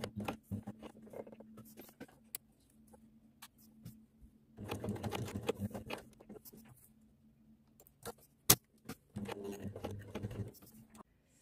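Domestic sewing machine topstitching in three short bursts: a second or two of running each time, with pauses in between. A single sharp click falls in the pause before the last burst.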